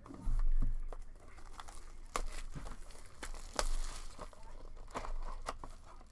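Clear plastic shrink-wrap on a trading card hobby box crinkling and tearing as it is unwrapped, with irregular crackles and clicks.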